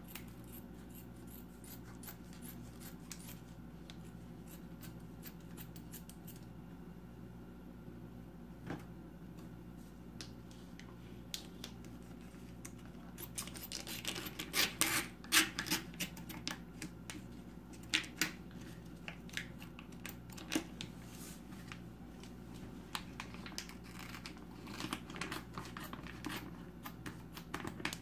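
Kitchen scissors snipping through bacon: a run of short, sharp snips, busiest about halfway through, over a steady low hum.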